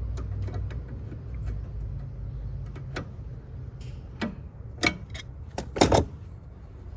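Sharp metal clicks and taps of a small E-clip being worked onto a steel linkage pin with hand tools, coming in a quick cluster near the end with the loudest click as it goes on. A low hum underneath fades out about halfway.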